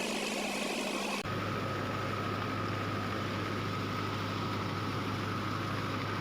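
A steady engine hum running without change in speed, its tone shifting abruptly about a second in.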